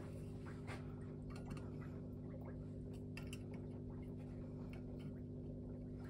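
Faint clicks and scrapes of a vernier caliper being handled, opened and set against the intake ports of RX-8 rotary engine side housings, over a steady low hum.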